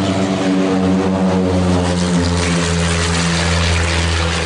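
Propeller-driven aircraft engines running: a loud, steady drone made of many even tones, drifting slightly lower in pitch. A rushing hiss grows in from about halfway through.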